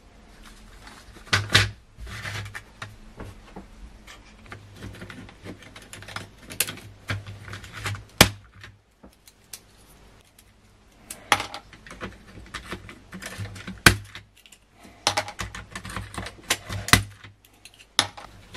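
Irregular sharp plastic clicks and clatter: keycaps of an Amiga A600 keyboard being pulled off and dropped into a plastic tub.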